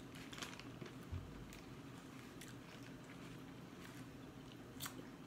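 Quiet chewing and mouth clicks of a person eating seafood boil, with a low thump about a second in and a sharper click near the end.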